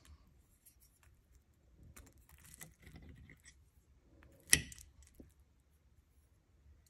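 Metal fork scraping and clicking faintly against a ceramic plate while a piece of chicken is cut and picked up, with one sharp clink of fork on plate a little past the middle.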